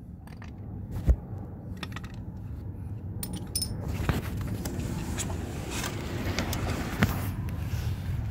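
Close handling noise of a cloth and hands: a sharp knock about a second in and a short metallic jingle around three seconds, then steady rubbing and rustling of a wet cloth from about four seconds on, with scattered clicks.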